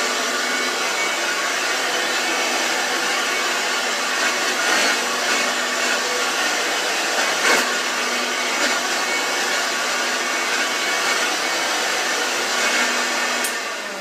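Rebuilt Hoover Junior 1334-A upright vacuum cleaner running steadily as it is pushed back and forth over carpet, with a few brief louder surges along the way. Near the end there is a click and the motor begins to wind down.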